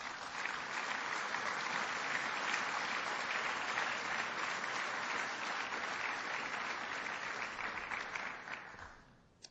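Audience applauding: dense, steady clapping from a large crowd that fades away about nine seconds in.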